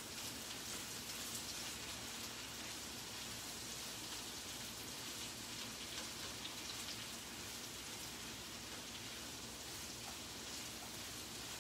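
Sweet potatoes and vegetables sizzling steadily in a frying pan on the stove, with faint crackles.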